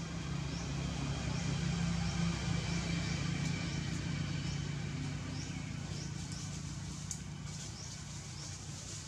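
Low steady hum of an engine running, weakening after about six seconds, with short high chirps repeating about every half second.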